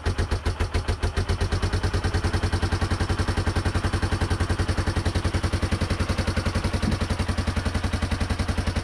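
1989 Yamaha Moto-4 350's single-cylinder four-stroke engine idling with a steady, even beat. The freshly rebuilt engine is running for the first time, now that the frayed stator wires to the pulser coil have been repaired.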